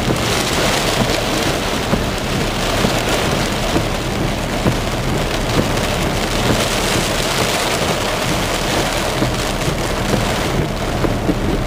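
Heavy thunderstorm rain falling steadily, a dense hiss of many drop hits.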